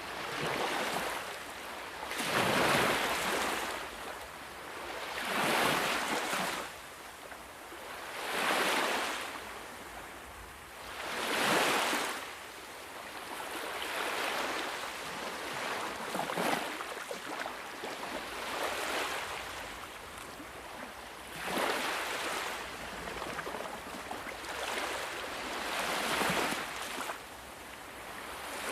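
Ocean waves breaking and washing up a shore, a hissing surge every three seconds or so, about nine in all, the first four the loudest.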